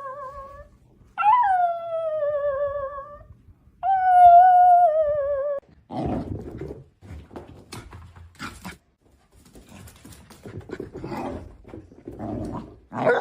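A dog howling: long wavering calls, each starting high and sliding down. One ends about a second in and two more follow, each about two seconds long. After that come irregular rustling and knocking noises.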